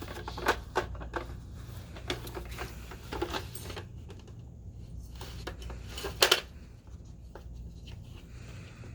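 A dog working a treat puzzle box with nose and mouth, the box's lids and pieces clicking and knocking: a run of clicks over the first few seconds, then the loudest, a quick double knock about six seconds in, over a steady low hum.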